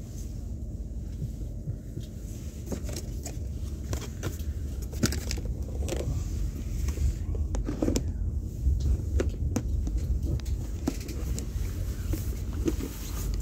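Passenger train running, heard from inside the carriage as a steady low rumble. Scattered clicks and rattles come through it irregularly from about two seconds in.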